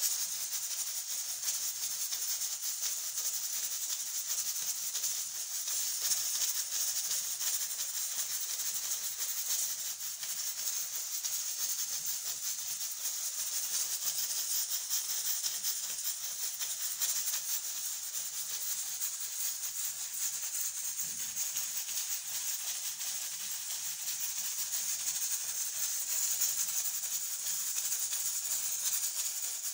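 Traditional pressure cooker at full pressure, steam hissing steadily from its weighted pressure valve with a fast, fine rattle.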